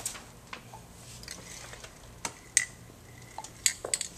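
Sparse, irregular light clicks and taps from spray-paint cans and paper stencils being handled, with no spray hiss.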